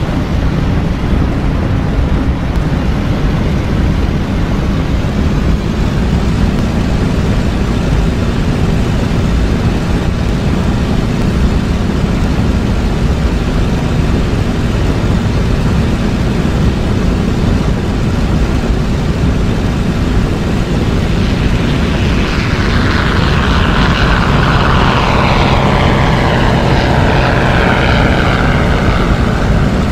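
Propeller aircraft's piston engine running with a steady deep drone. From about two-thirds of the way in, a higher whine joins it and slides steadily down in pitch.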